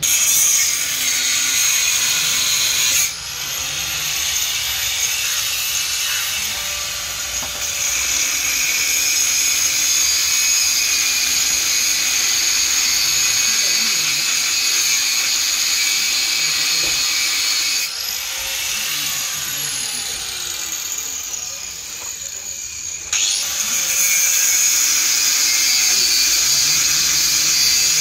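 Handheld electric power tool running under load with a steady high whine, easing back about three seconds in and again around twenty-two seconds before picking up again.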